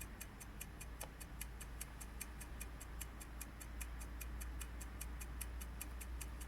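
Steady, rapid ticking of a small mechanism, about seven even ticks a second, over a low hum.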